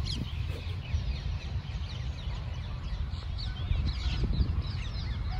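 Many small birds chirping, a busy stream of short falling chirps, over a low rumble.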